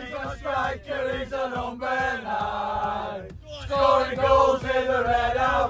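A group of men chanting a football terrace song together in unison, loud and close inside a van, with a brief break about three seconds in.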